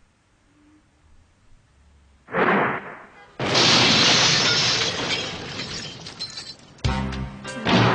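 A short whoosh, then about three and a half seconds in a sudden loud crash of blast and shattering debris that dies away over about three seconds: a cartoon sound effect of a grenade going off.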